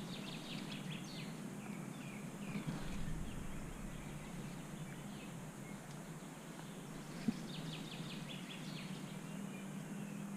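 Quiet woodland ambience: a small bird sings two quick trills of high chirps, one right at the start and one toward the end, over a steady low hum. A single faint click comes about seven seconds in.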